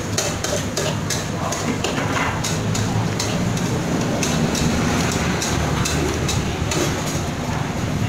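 Repeated sharp knocks of food being prepared in a restaurant kitchen, coming irregularly about two to three times a second, over a steady low hum.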